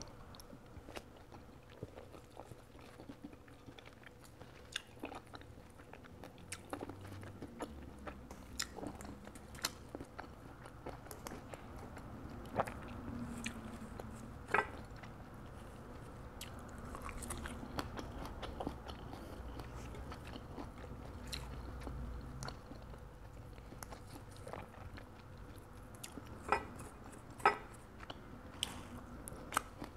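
Close-up chewing of a balut duck embryo, with scattered small crunching clicks as the mouthful is worked. The embryo is a large, well-developed one with many feathers.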